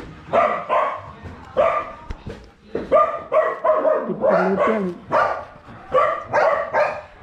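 Dog barking repeatedly: a dozen or so short barks in quick runs.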